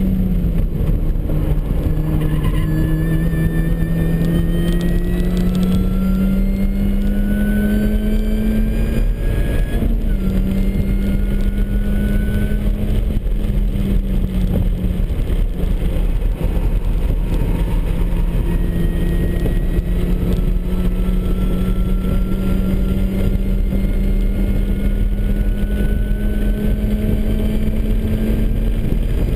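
A supercharged MINI Cooper S four-cylinder pulling hard on track, with a high supercharger whine rising alongside the engine note. Both climb slowly in pitch and drop back at upshifts about ten and fifteen seconds in. Steady road and wind noise runs underneath.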